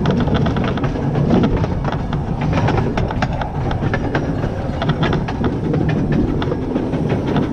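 Small 0-4-2T steam tank engine running along the track, heard close up from on board: a steady rumble of wheels on rail with frequent clicks and clatter.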